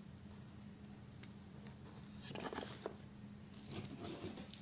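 Faint rustling and light taps of hands handling an open cardboard box and its packaging, in short spells about two and four seconds in.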